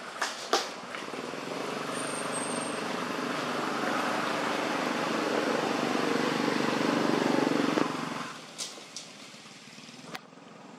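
A motor vehicle engine running close by, growing steadily louder for several seconds and then dropping away abruptly about eight seconds in. A few short sharp clicks come near the start and again after it stops.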